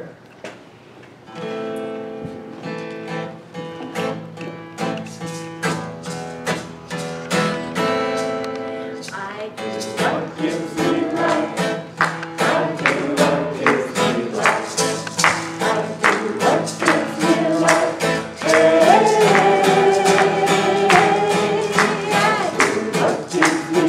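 Acoustic guitar playing a song intro: slow ringing chords at first, then a steady rhythmic strum from about ten seconds in. A woman's singing voice comes in over the guitar near the end.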